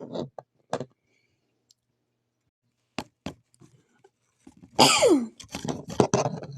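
A few quiet clicks, then, near the end, a child's loud acted sneeze for a toy fairy: a sudden 'achoo' whose pitch drops sharply. More short vocal noises follow it.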